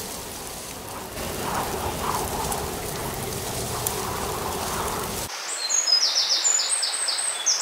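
A steady hiss for the first five seconds, then it cuts to woodland songbirds singing: high, quick repeated notes and trills.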